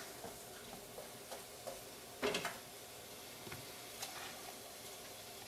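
A utensil scraping and tapping in a stainless steel bowl of sliced apples: a few faint ticks and one louder clatter a little over two seconds in, over a steady low hiss.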